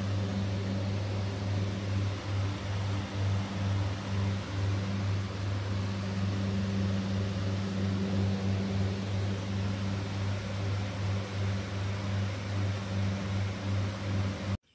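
A steady low electrical hum with a hiss over it, which cuts off suddenly near the end.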